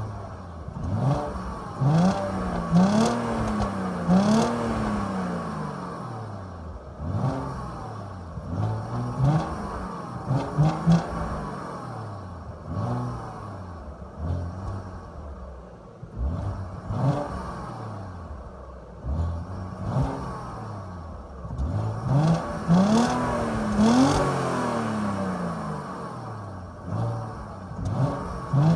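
Audi A4 B6 2.4-litre 30-valve V6 with its stock exhaust, revved again and again in short throttle blips, its pitch rising and falling each time. A few longer revs climb higher, once near the start and again near the end.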